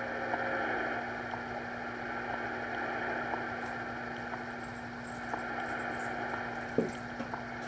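Steady background hum and hiss with a constant low tone, a few faint clicks, and one short knock near the end.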